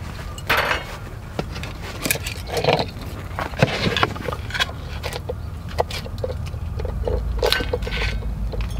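Cooking-gear handling on a charcoal grill: a cast-iron skillet set down on the wire mesh and metal tongs clinking and scraping as prawns go into it, a run of short knocks and ticks over a low steady rumble.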